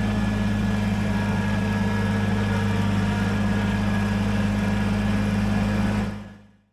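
Kubota BX compact tractor's diesel engine running at a steady speed, a constant low drone. About six seconds in it fades out to silence.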